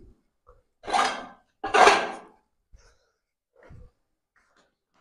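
Two loud, rough bursts from a person's voice about a second apart, each lasting about half a second, followed by a few faint low knocks.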